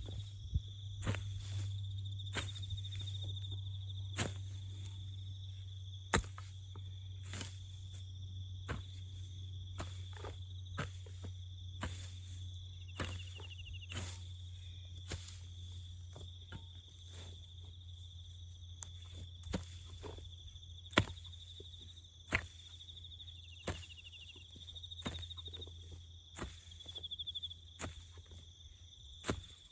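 Crickets chirping in a steady high trill, over a steady low hum, with sharp irregular knocks or clicks every second or so and a few short warbling chirps.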